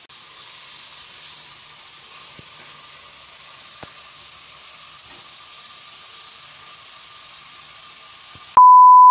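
A steady, even hiss, then near the end a loud single-pitched electronic beep cuts in and holds.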